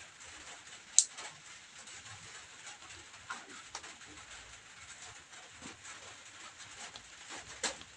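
Two sharp clicks from a hand crimping tool working an RJ45 plug on a LAN cable, one about a second in and one near the end, with faint small handling ticks between.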